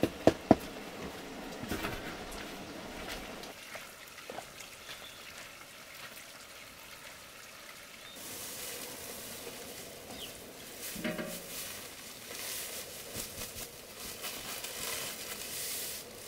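Wooden paddle knocking twice against a large metal pot, then scraping and stirring a steaming mash. In the second half a hiss comes and goes.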